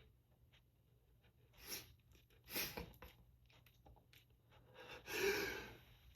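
A person's sneezing fit: short sniffs and breaths, then a longer, louder noisy burst with some voice in it about five seconds in.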